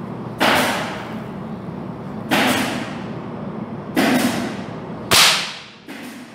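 Air rifle firing a .177 flat-head pellet over a shooting chronograph, a sharp report about five seconds in that is the loudest sound. Three similar sharp, hissy bursts come before it, each fading over about a second.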